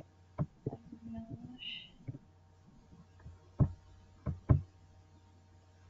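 Computer keyboard keys being tapped in a few scattered, uneven clicks while a web address is typed, over a low steady hum.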